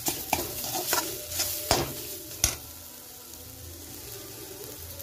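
Perforated metal spatula scraping and tapping against a kadhai while stirring a spiced stuffing that sizzles in the oil. The strokes stop about two and a half seconds in, leaving a steady, quiet sizzle.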